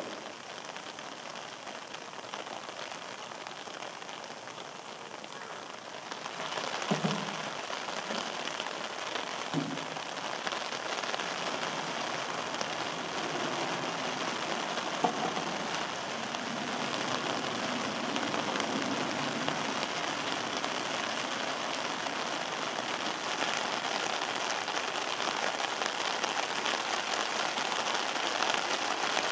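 Steady rain falling, an even hiss that grows louder about six seconds in. A couple of dull knocks come about seven and ten seconds in.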